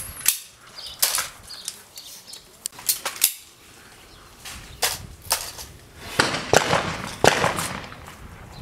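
Shotgun shots on a trap range: a string of sharp reports at irregular spacing, some fainter than others, each with a short echo.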